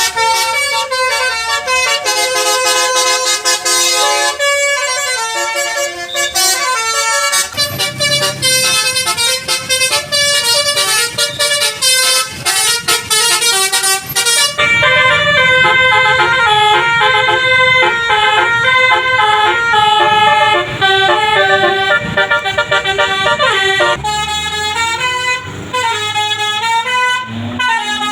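Bus 'telolet' musical air horns (Basuri type) playing melodic tunes, stepping from note to note, with a bus engine running underneath from about seven seconds in. The tune changes abruptly about halfway through and again near the end, where the notes slide up and down.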